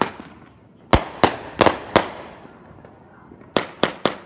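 Brothers 'Old Ironsides' 350-gram fireworks cake firing: sharp bangs in quick groups, four in about a second starting a second in, then three more in quick succession near the end.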